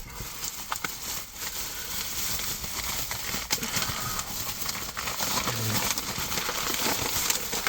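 Plastic bait packaging rustling and crinkling as it is handled, with small knocks.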